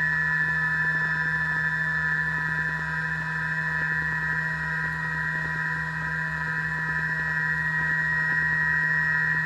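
CNC milling machine cutting metal with a Rhino Inox end mill on a dynamic (high-efficiency) milling path: a steady whine with a fast, even ticking from the cutter.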